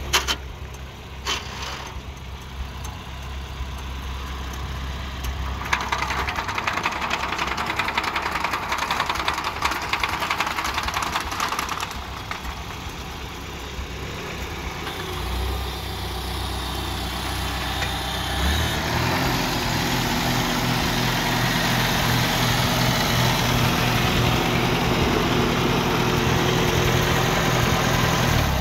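Farmall Super C tractor's four-cylinder gasoline engine running at idle, with a stretch of louder mechanical noise over it from about six to twelve seconds in. About two-thirds of the way through, the engine speeds up and holds at the higher speed.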